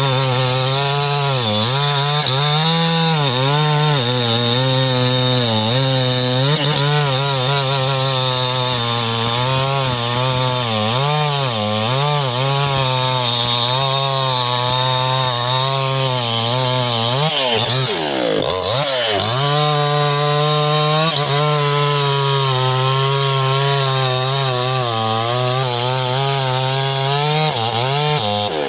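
Mini chainsaw engine running under load while cutting wood, its pitch wavering as it bogs and picks up again. About 18 seconds in, the revs drop sharply and then climb back.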